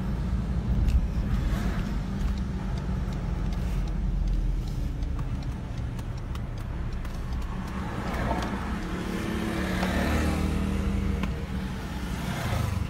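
Ford Ranger diesel pickup driving, heard from inside the cabin: a steady low rumble of engine and tyres on the road.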